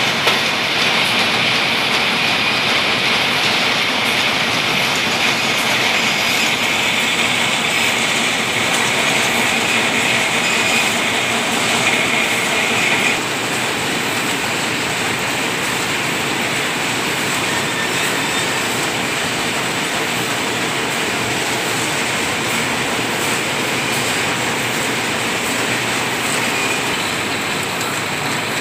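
Automatic silk reeling machine running: a steady, dense mechanical clatter from its rows of turning reels and thread guides. A high hiss in the noise stops about 13 seconds in, and the sound gets slightly quieter from then on.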